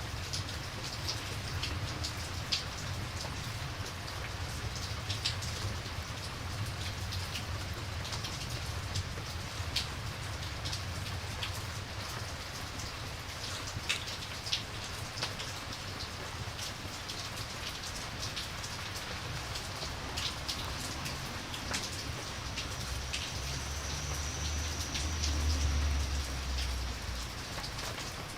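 Steady rain falling, with scattered sharp ticks of drops throughout and a low rumble that swells briefly near the end.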